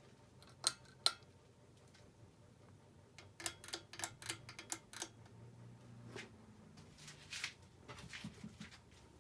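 Ceiling fan motor with a faint, steady low hum, under scattered sharp clicks and ticks: two single clicks early, a quick run of about eight a few seconds in, and softer ticks near the end.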